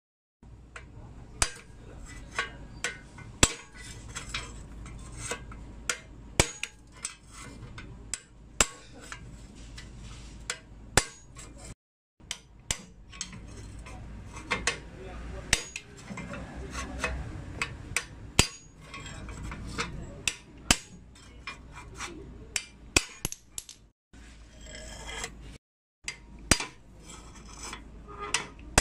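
A steel rod knocking and clinking against a bicycle's headset cup inside the head tube, as the cup is being driven out of the frame. Sharp metallic knocks come at an uneven pace, sometimes several a second.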